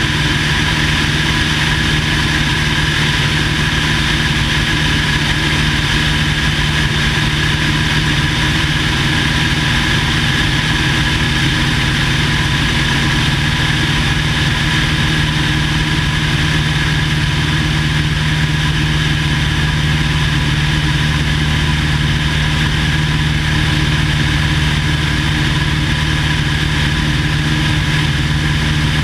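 Engine and propeller of a 1950 Cessna 170A, a six-cylinder Continental, running at a steady speed. A continuous drone that holds one even pitch throughout.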